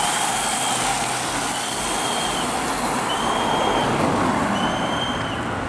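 Steady rushing noise of a bicycle race bunch and its following vehicles passing, with a high beep of about half a second repeating roughly every second and a half.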